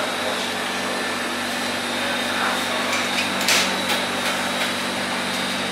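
Electric meat grinder running steadily, a constant motor hum and whir. A few sharp clicks and knocks sound over it, the loudest about three and a half seconds in.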